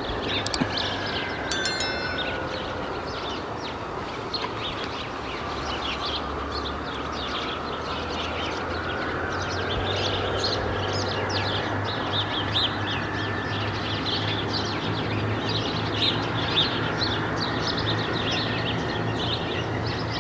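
Birds chirping and singing densely over a steady low background hum. A short bright chime, like a notification bell, sounds about a second and a half in.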